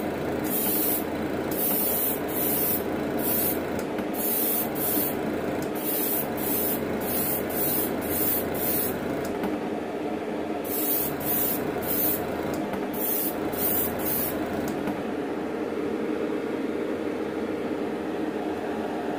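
Gravity-feed airbrush spraying gloss black paint in short repeated bursts of hiss, roughly two a second, with a brief pause about halfway and none in the last few seconds as the airbrush is set down. A steady hum runs underneath.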